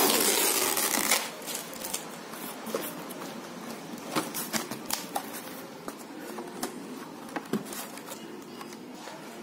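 Packing tape ripped off a cardboard shipping box in one long tear lasting about a second, followed by scattered rustling and light knocks of cardboard being handled as the box is opened.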